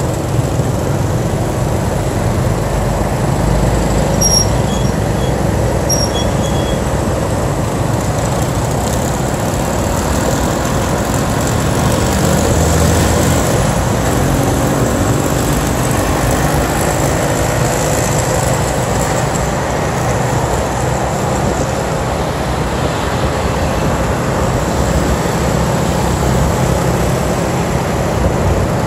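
Steady road noise from riding a motorbike in traffic: wind rushing over the microphone, engine and tyre noise, with other motorbikes running alongside.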